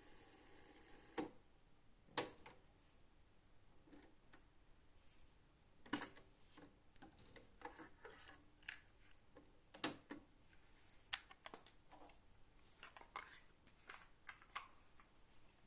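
Scattered small mechanical clicks and knocks, about a dozen, the loudest about two seconds in, over faint background hiss. Typical of a cassette deck's controls and mechanism being worked.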